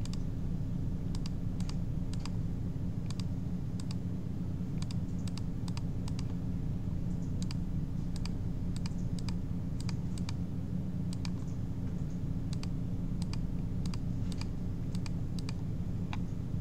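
Computer mouse and keyboard clicks, scattered and irregular, one or two a second, as lines are picked and trimmed in a CAD program, over a steady low hum.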